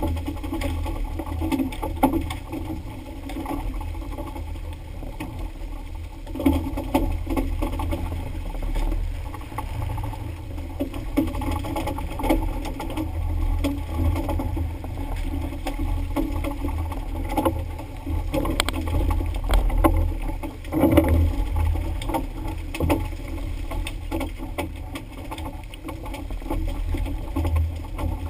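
A fishing boat in rough sea: a steady low rumble with splashing water and spray, broken by irregular knocks, the loudest about two-thirds of the way through.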